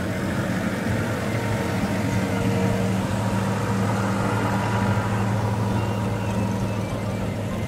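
Bus engine running with a steady low drone.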